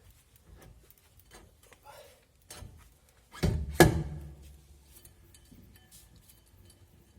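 Two sharp metallic knocks about half a second apart on a Renault Kaptur's rear brake drum as it is fitted onto the hub. Each knock leaves the drum ringing briefly, with lighter clicks and taps around them.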